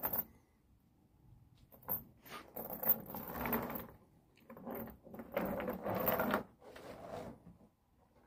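A dog's metal tie-out chain rattling and dragging over wooden deck boards as the dog moves about, in two longer stretches with scattered clinks.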